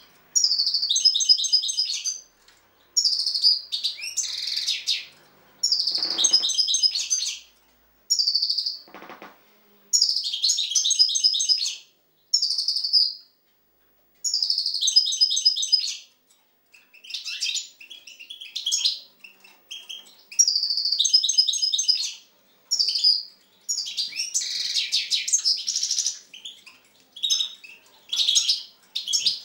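European goldfinch singing: a run of fast, high twittering phrases, each a second or two long, with short pauses between them.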